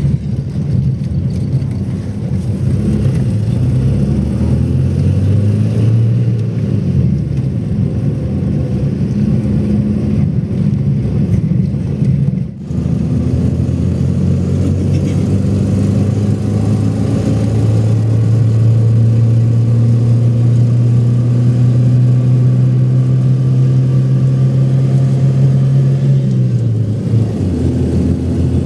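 A motor vehicle's engine running under load, its pitch shifting up and down, with a brief drop-out about a third of the way through. It then holds a steady drone before easing off shortly before the end.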